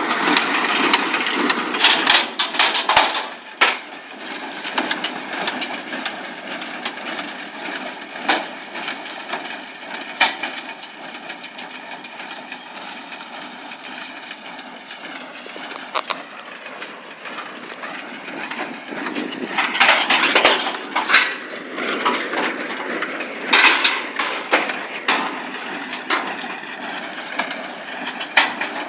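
Tractor-drawn hay baler at work: a steady machine clatter with repeated cracking and knocking as the hay is packed. Louder bursts come about two seconds in and again around twenty and twenty-four seconds in.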